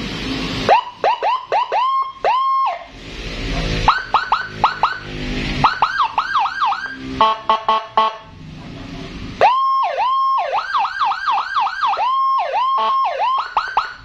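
Custom Whelen 60-watt, 24-tone police escort siren sounding through a 15-watt horn speaker, switched through several of its tones: quick rising chirps repeated rapidly, a fast two-tone warble, and held high notes, changing pattern a few times with short breaks between.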